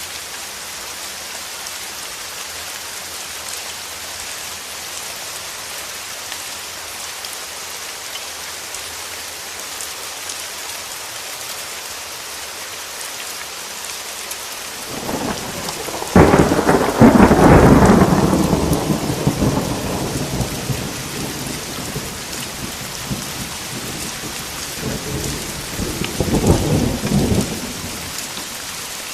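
Steady heavy rain with a thunderclap about halfway through, a loud crack and rumble that fades over several seconds, then a second, softer roll of thunder near the end.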